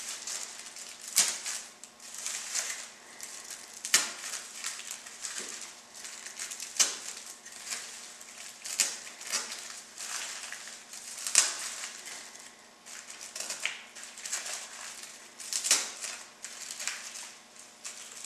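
Metallic foil and cello lace crinkling and rustling in irregular bursts as foil poofs on wooden picks are handled and pushed into a styrofoam disc. A steady low hum runs underneath.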